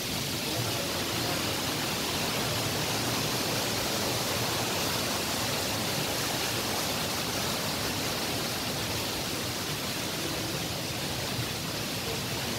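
Steady rushing of flowing water from a stream or spring channel, an even hiss with no breaks.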